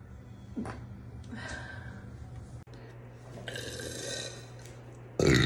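A woman's loud, deep burp starts suddenly near the end, after a few seconds of quiet with faint breaths and a low steady hum.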